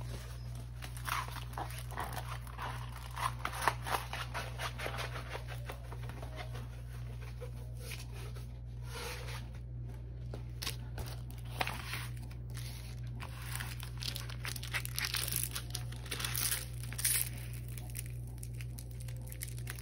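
Crinkling and rustling of a diamond painting canvas and its clear plastic protective film as it is handled: a continuous run of small crackles with a few louder crinkles.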